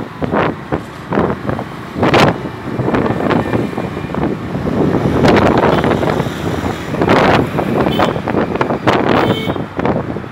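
Wind buffeting the microphone in irregular gusts over the engine and road noise of a two-wheeler riding in city traffic.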